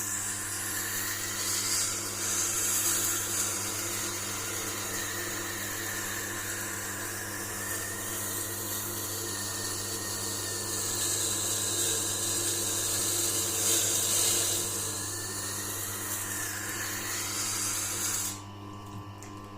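Motor-driven sharpening stone running with a steady hum while a pocket-knife blade is ground on it, a grinding hiss that swells and eases as the blade is worked. The grinding cuts off suddenly near the end, leaving only a hum.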